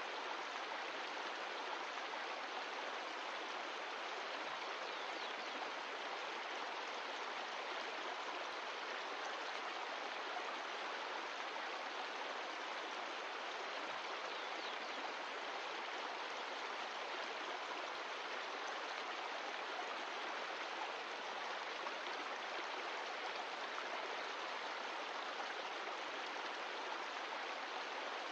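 Mountain stream flowing steadily, an even, unbroken rush of water.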